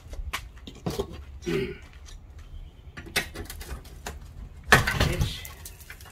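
Metal clicks and scrapes as a hand tool pries an old aluminum window frame loose from a stucco opening, with one louder rasping scrape about five seconds in.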